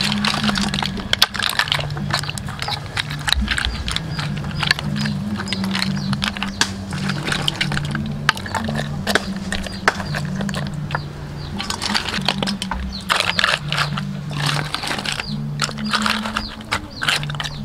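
River snail shells and crab shells clicking and clattering as they are pressed and piled by hand into a split pig carcass, with many small irregular knocks. A low hum that steps between two pitches runs underneath.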